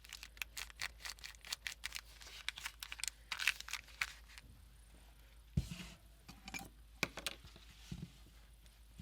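Paper and packing materials handled by hand: dense crackling and crinkling for the first half, then quieter rustling with a dull knock about halfway through and another near the end.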